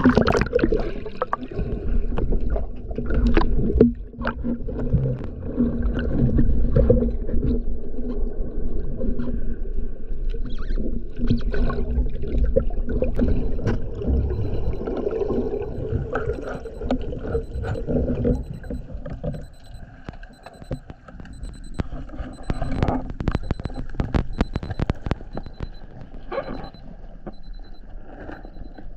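Water rushing and sloshing around an underwater camera as a breath-hold diver ducks under and swims down, heard as loud, muffled low noise. After that it turns quieter and muffled, with a run of sharp clicks a few seconds before the end and a faint high beep repeating about once or twice a second.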